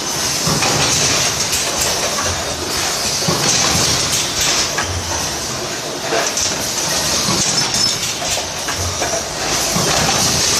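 Can-making machine running, forming hemmed and clinched (crimped-seam) cans: a steady mechanical clatter of clicks over a hiss, with a low thump every few seconds.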